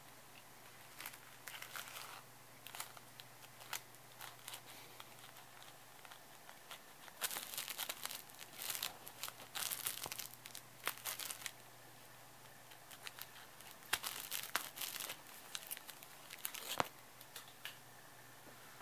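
Cellophane being crinkled, in irregular crackles with two louder, denser spells, one in the middle and one later on.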